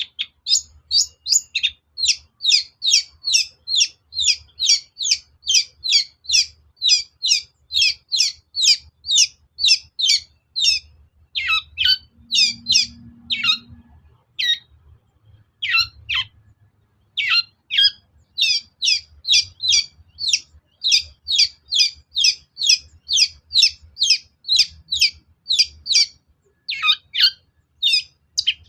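Long-tailed shrike giving a fast, steady series of short, downward-sweeping calls, about two to three a second, with a brief break around the middle. This is a lure recording meant to provoke a caged shrike into answering.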